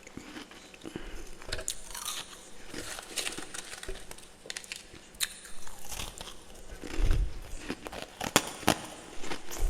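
Close-up crunching and chewing of freezer frost, a run of irregular crisp crackles and bites with the loudest crunches about seven and eight and a half seconds in.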